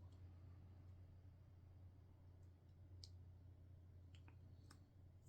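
Near silence with a few faint clicks of plastic Lego pieces being handled and fitted, over a low steady hum.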